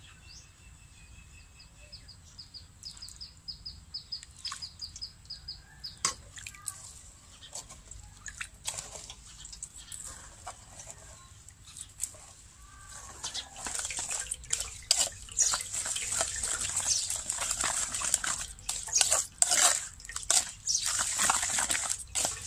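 Pounded crab liquid trickling through a metal strainer into a basin, with a bird chirping a quick run of short notes in the first few seconds. From about halfway on, a metal ladle scrapes and presses the crab paste in the strainer, with many clinks and scrapes that grow louder near the end, squeezing out the juice.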